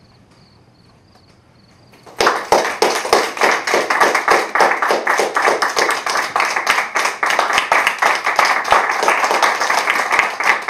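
Quiet room for about two seconds, then audience applause starts suddenly: many hands clapping loudly and continuously.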